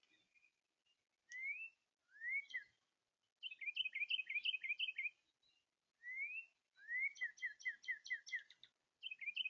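Northern cardinal singing clear whistled phrases: a few single rising whistles, then runs of quick repeated slurred notes, about five a second.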